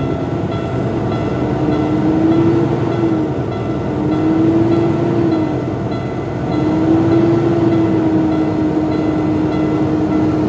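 Cummins diesel engine of a Kenworth T680 truck running while the air brake system builds pressure. It is a steady, loud rumble with a droning tone that swells and eases three times.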